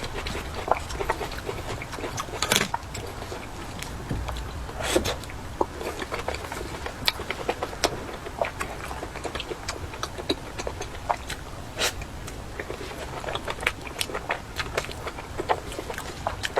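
Irregular light clicks and taps from hands at work on food preparation, a few sharper knocks among them.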